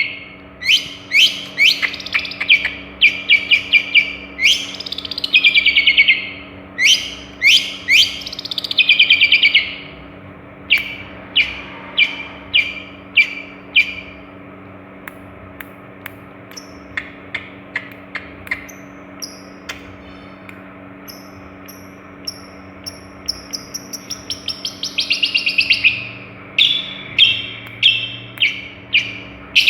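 Long-tailed shrike (Madura cendet) singing a varied song: runs of loud, harsh, falling calls, then softer ticking notes and thin high whistles in the middle, and the harsh calls again near the end.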